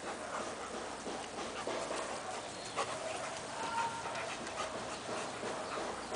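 A Doberman and a German Shepherd play-fighting, panting hard, with many short scuffling noises and a brief high whine near four seconds in.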